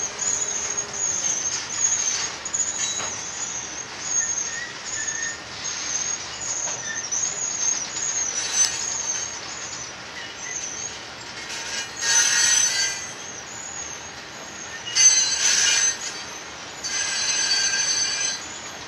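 Herzog ballast hopper cars rolling past, their wheels squealing against the rails in a steady, high, wavering tone. Three louder squeals of several tones at once come about twelve, fifteen and seventeen seconds in, the last lasting well over a second.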